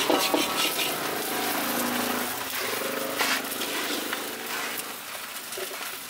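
A motor vehicle's engine running close by, a steady hum that fades about five seconds in, over short scrapes of a metal spatula and a scrubber against an aluminium wok.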